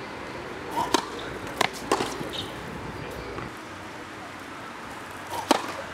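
Sharp pops of a tennis ball struck by rackets and bouncing on a hard court: a serve about a second in, two more pops in the next second, and another near the end.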